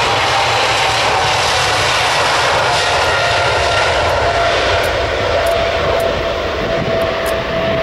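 Boeing 777-300ER's two GE90-115B turbofans at takeoff thrust on the takeoff roll: a loud jet roar with a steady whine that slowly falls in pitch as the aircraft passes and runs away.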